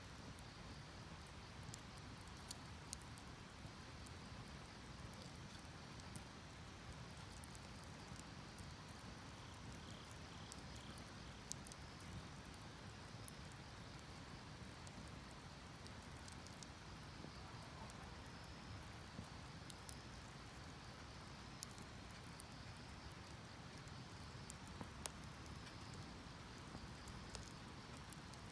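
Wood fire crackling in a metal drum, with sharp pops at irregular moments, over the steady rush of a river. Faint insect chirping comes and goes.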